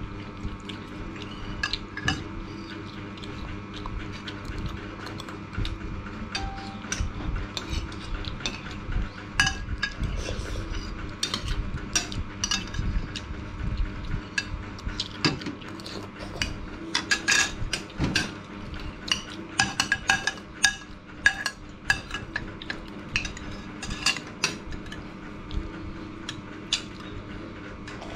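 Metal spoons clinking and scraping against ceramic bowls and plates while eating: a string of short, sharp clinks that grows busier about halfway through.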